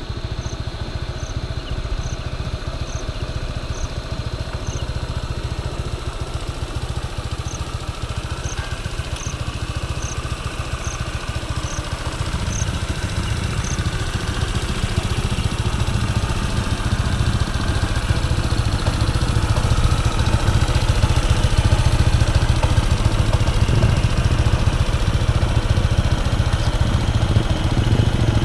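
Honda ADV160 scooter's single-cylinder four-stroke engine running through its stock exhaust, a steady low idle that grows louder about halfway through and then holds. A faint, regular high chirp sounds about twice a second through the first half.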